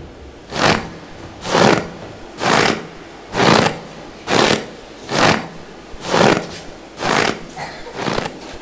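A performer puffing heavily, with slow, loud breaths about once a second, picked up by the stage microphones, as if exhausted. A few smaller puffs come near the end.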